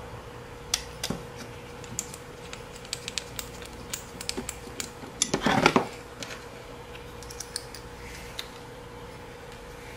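Small metal and plastic clicks and taps of M3 screws and an Allen wrench being worked into a quadcopter's motor mounts by hand, with a brief louder scuff about halfway and a faint steady hum underneath.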